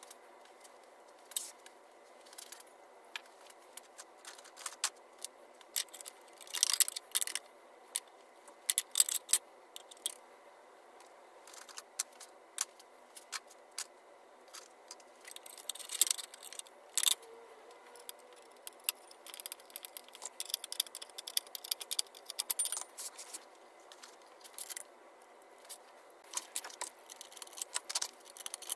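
Irregular metallic clinks, taps and short clattering scrapes of hand tools and metal chainsaw parts being handled during reassembly of a Poulan Super 31 chainsaw.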